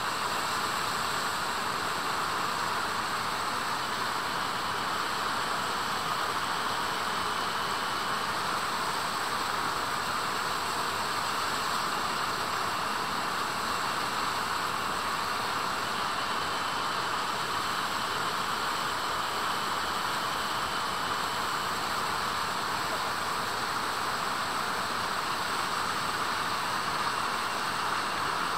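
A steady, even rushing noise, like flowing water.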